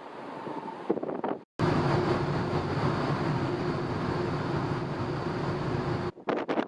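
Wind buffeting the microphone. After an abrupt cut there is the steady drone of a large car ferry's engines and deck machinery: several held low hums with a faint high whine. Near the end it cuts back to gusty wind on the microphone.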